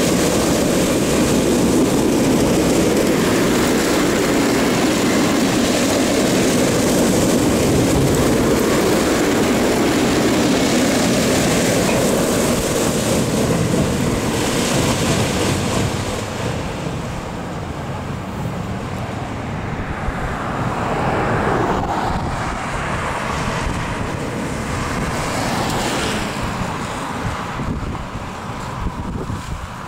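Heavy diesel engines of large articulated dump trucks running as a steady rumble, louder through the first half and easing off about halfway through, with wind buffeting the microphone throughout.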